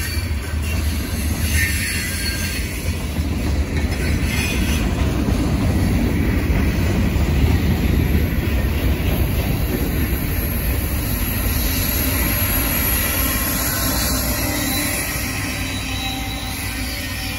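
Covered hopper cars of a freight train rolling past at close range: a steady low rumble of steel wheels on the rails, with some high wheel squeal. It swells a little toward the middle and eases slightly near the end.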